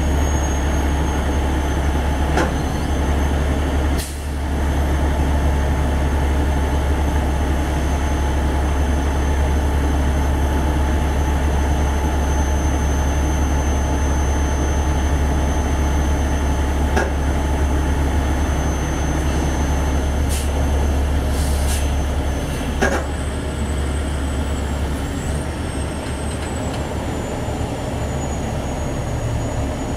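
Heavy diesel engine of a Peterbilt tow truck running with a steady low rumble as it slowly pulls an articulated bus. A thin high-pitched whine sounds throughout and jumps higher about three quarters of the way through, with a few sharp clicks here and there.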